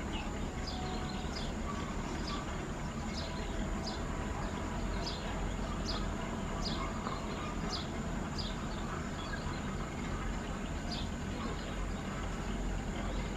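Diesel engine of a bladed wheel tractor running low and steady. Over it, short high falling chirps, like a bird's, repeat about once a second.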